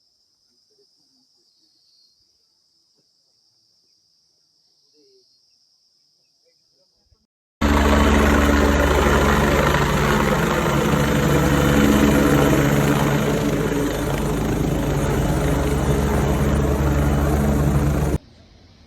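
Faint steady high-pitched insect chirring, typical of crickets. About seven and a half seconds in, it cuts abruptly to a loud helicopter running close by: dense rotor and turbine noise over a steady low hum. This lasts about ten seconds and stops suddenly near the end.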